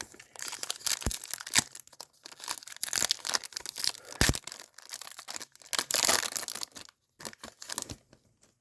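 A trading card pack's wrapper being torn open and crinkled, in irregular crackly bursts, with two dull knocks about a second in and again near the middle.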